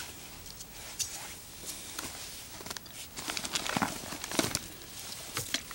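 Rustling of a backpack and its contents being rummaged through, with a few light knocks and clicks, mostly in the second half.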